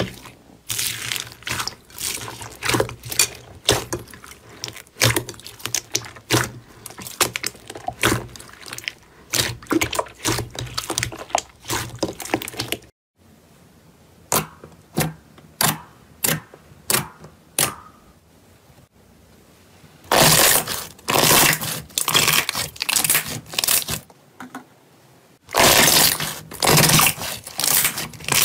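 Hands squishing slime: first a foam-bead slime pressed and squeezed, giving a dense run of small crackling clicks and pops; after a brief pause, a glossy grey slime kneaded with the fingers, giving scattered wet pops and then loud runs of crackling squelches.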